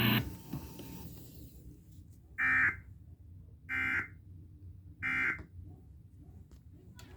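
Emergency Alert System end-of-message data bursts on NOAA Weather Radio: three short, buzzy electronic bursts about a second and a quarter apart, signalling the end of the severe thunderstorm warning.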